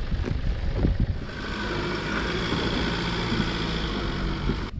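A vehicle engine running while driving on a rough track, with knocks and rattles in the first second or so, then a steady drone at an even pitch.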